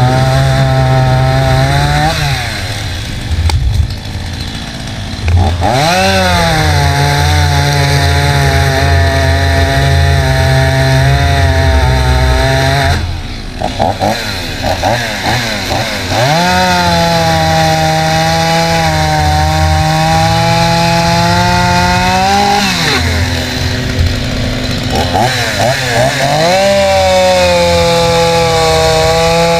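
Stihl chainsaw's two-stroke engine opened up to full throttle in long runs of several seconds, dropping back to idle in between, four times over.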